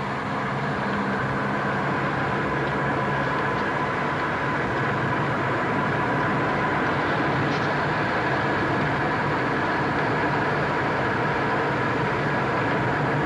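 Steady engine and road noise of a moving car, heard from inside the cabin, with a thin steady tone running through it.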